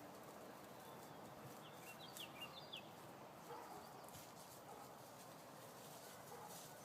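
Near silence with a few faint, short, falling bird chirps about two seconds in.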